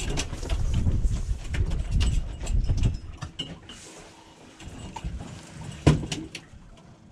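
Knocks and clatter on an aluminum boat deck over a low, uneven rumble, which is loudest for the first three seconds, with one sharp knock about six seconds in.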